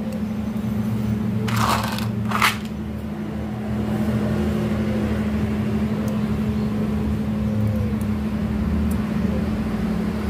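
A steady low hum, with two short rustling noises about one and a half and two and a half seconds in.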